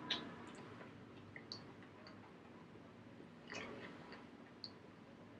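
A person chewing a mouthful of food with the mouth closed, faintly, with a few soft wet mouth clicks scattered through.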